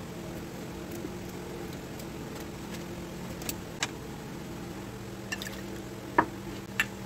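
Steady low background hum with a few light clicks and taps from handling thin raw potato slices and dishes; the loudest is a short ringing tap about six seconds in.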